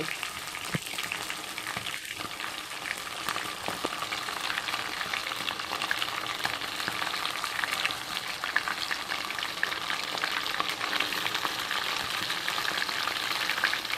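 Marinated chicken pieces frying in hot oil on a low flame: a steady dense sizzle and crackle, with a few sharper pops in the first few seconds.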